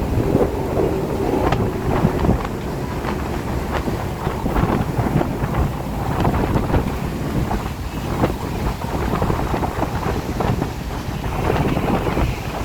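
Strong wind gusting and buffeting the microphone in a rainstorm, a steady low rushing with irregular short blasts.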